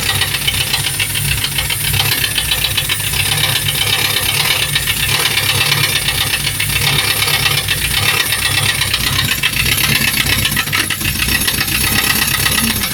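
Engine running at a steady speed on its first start, with a fast metallic knocking rattle over it. The knock is the fault being hunted, thought to come from one side of the engine.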